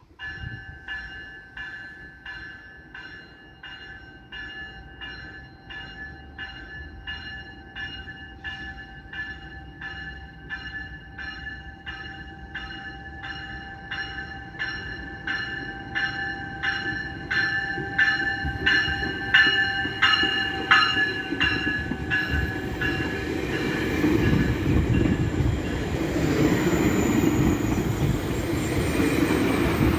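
Departing GO Transit commuter train with an MP54AC diesel locomotive: its bell rings steadily about one and a half strokes a second while the train's rumble grows louder as it approaches. The bell stops about 23 seconds in, giving way to the loud rolling noise of bilevel coaches passing close by, with a thin high squeal near the end.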